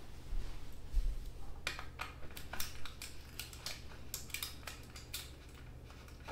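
Irregular light metallic clicks and clinks of hands working a bicycle's front thru-axle and hub to take the front wheel out of the fork, with a louder knock about a second in. A steady low hum runs underneath.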